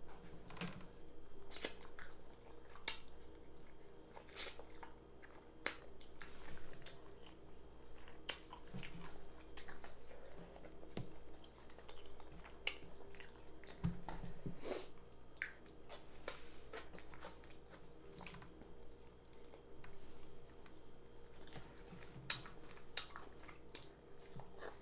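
A person chewing and eating close to the microphone, a meal of fufu, egusi stew and tilapia fish: irregular wet smacks and clicks of the mouth, with no set rhythm.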